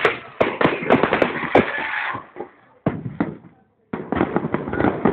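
Fireworks going off: a rapid string of sharp bangs and crackles, thinning out around three seconds in and then coming thick again near the end, with crowd voices underneath. The sound drops out for a moment just before four seconds.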